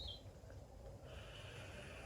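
Faint, steady breathy hiss of a person taking a hit from a vape tank, starting about a second in. A brief high chirp comes at the very start.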